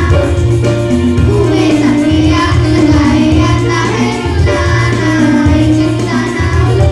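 A song with a child's singing voice over a backing track with a low, pulsing bass.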